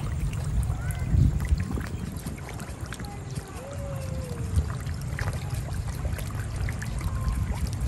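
Water splashing and slapping as a crowd of fish churn at the surface, over a steady low rumble.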